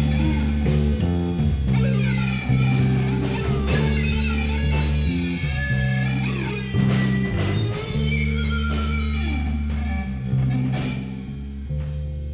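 Live rock jam: electric guitar playing bending lead lines over held low bass notes, with drum and cymbal hits. The playing eases off in loudness near the end.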